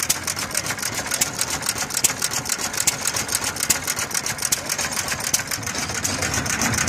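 Antique single-cylinder stationary engine with twin flywheels running, its exposed valve gear and linkages clicking in a rapid, even rhythm of about eight clicks a second.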